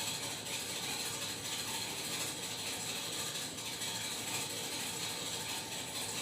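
Broken household furnace making a steady, fast mechanical clatter of close-set ticks, the noise of a malfunctioning heater that the family suspects may come from snow on the roof.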